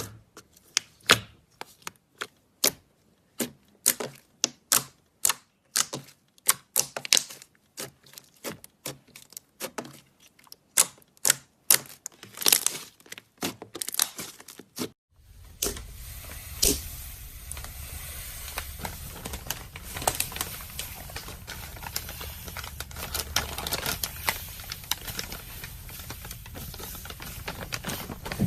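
Slime being squeezed and pressed by hand, making a run of sharp popping clicks about two a second. About halfway through it changes to a denser, steady crackling.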